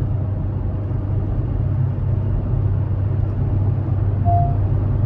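Fifth-generation Honda City's four-cylinder engine humming steadily under acceleration in sports mode, heard from inside the cabin with road noise and no rattle. A brief faint tone sounds about four seconds in.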